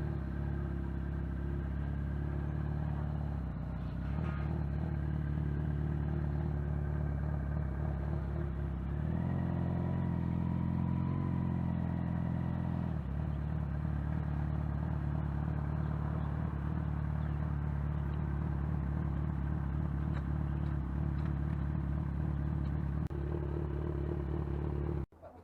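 Motorcycle engine running steadily while riding, its note changing for a few seconds about nine seconds in, then settling back; the sound cuts off suddenly near the end.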